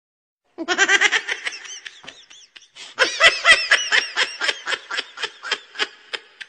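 Baby monkey laughing while being tickled: a run of rapid, high-pitched, panting squeals starting about half a second in, coming faster and louder from about halfway through.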